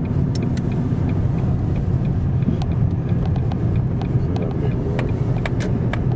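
Car driving, heard from inside the cabin: a steady low rumble of engine and road noise with occasional light clicks.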